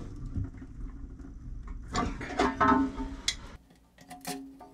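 Hands rustling under a toilet tank and a few sharp plastic clicks near the end as a plastic coupling nut is hand-threaded onto a toilet fill valve's shank.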